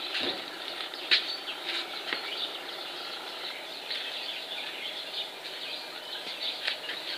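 Small birds chirping and twittering outdoors, with a few light clicks, one sharp one about a second in.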